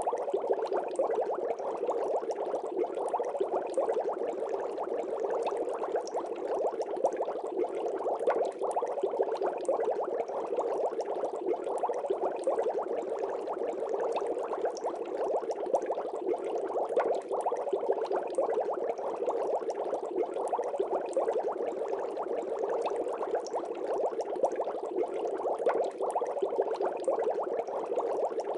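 Water bubbling steadily in an aquarium, a continuous fine crackle of small bubbles.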